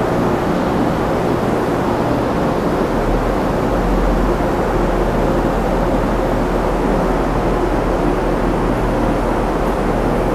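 A train running steadily: a constant loud rushing noise with a low hum underneath, unchanging throughout.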